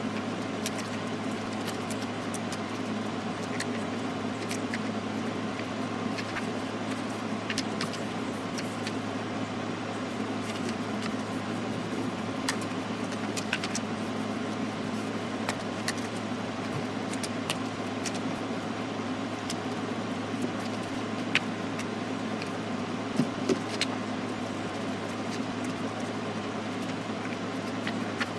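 A steady low hum runs throughout, with scattered light clicks and rustles from paper pieces being folded and creased by hand. A few sharper clicks come about three-quarters of the way through.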